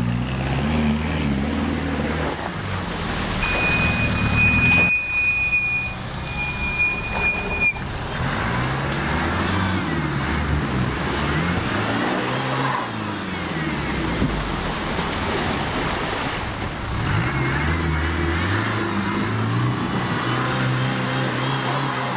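Off-road vehicle engine revving up and down as it works over the course, with a steady high whistle for a few seconds near the start.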